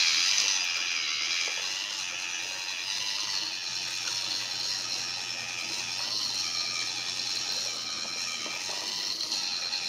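A popsicle-stick Theo Jansen walking machine running on its small 3-volt electric motor: a steady high whirring rattle of the motor and its drive, with the bead chain and stick leg linkage clicking as it walks.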